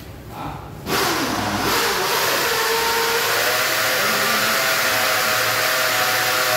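A machine running with a loud, steady rushing noise and a faint whine that climbs slightly. It starts suddenly about a second in.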